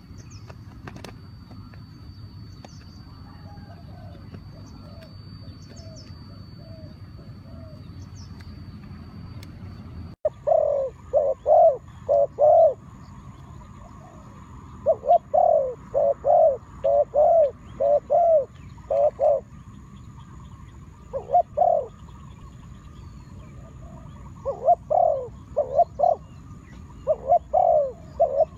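A dove cooing, close and loud, in repeated runs of short arched coos with pauses between. It starts about ten seconds in, after a stretch of faint steady background noise.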